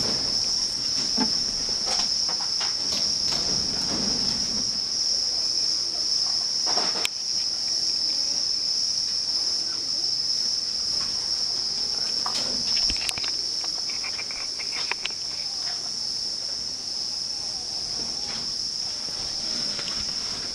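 A steady, high-pitched drone of insects calling, with scattered light clicks and knocks over it.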